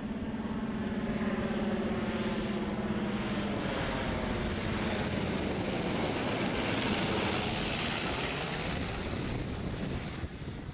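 Single-engine propeller airplane flying low overhead. Its engine and propeller drone swells to a peak about seven seconds in, then drops in pitch as it passes and moves away.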